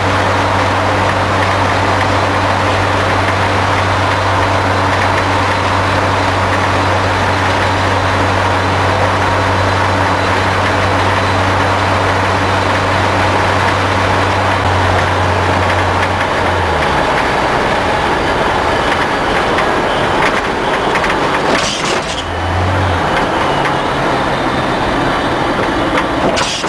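Vehicle engine droning at a steady speed under loud road and wind noise inside the cab; about two-thirds of the way through the steady engine note breaks off and changes as the driver slows and speeds up.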